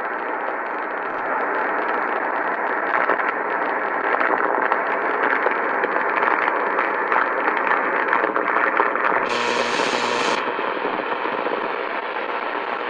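Sony ICF-2010 shortwave receiver's speaker putting out steady static hiss with no station, as it is tuned up through the 4 MHz shortwave range in AM mode. About nine seconds in, a harsher, brighter burst of noise lasts about a second, then the plain hiss returns.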